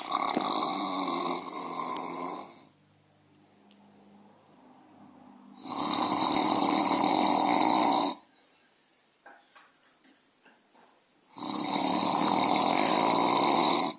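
Loud snoring: three long snores, each lasting about two and a half seconds and coming about every six seconds, with quiet breathing between them.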